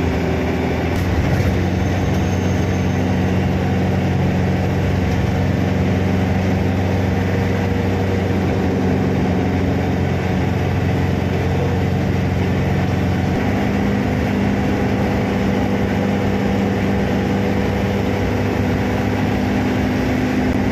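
Steady engine hum and road noise inside a moving car's cabin. The engine note shifts once, about two-thirds of the way through.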